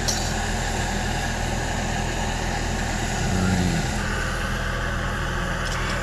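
Small propane camp stove burner running steadily, a continuous even hiss with a low hum under it, heating water for coffee; the hiss brightens a little about four seconds in.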